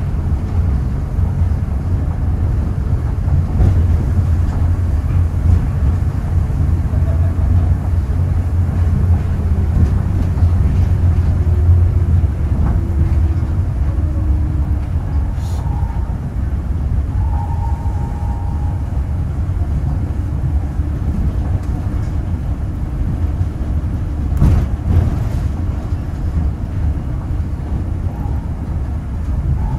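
Rubber-tyred automated guideway train of the Nanko Port Town Line running along its concrete guideway, heard from inside the front car: a steady low rumble with a faint falling whine about halfway through and a couple of sharp clicks later on.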